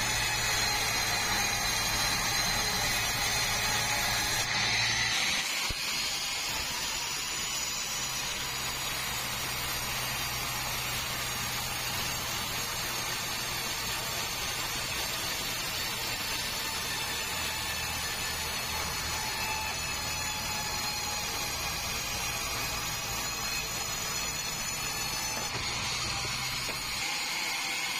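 Sawmill band saw running steadily with a high whine over a low machine hum. The sound shifts slightly about five seconds in and again near the end.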